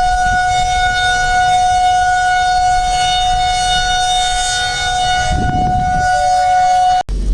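Outdoor tornado warning siren sounding a steady, unwavering tone, the signal of a tornado warning. It cuts off suddenly near the end.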